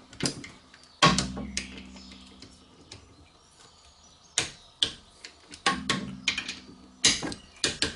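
Click-type torque wrench working on the rear brake caliper bolts, tightened to 30 N·m: a run of sharp metallic clicks from the ratchet and the wrench breaking over at torque, some followed by a short metallic ring.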